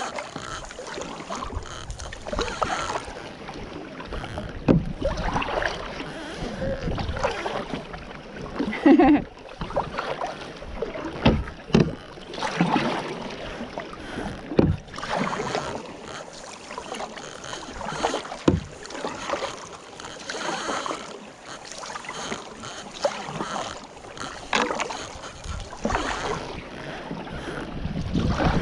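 Kayak paddle strokes: the blades dipping and pulling through the water with splashes and drips against a plastic sit-on-top kayak, coming irregularly every second or two.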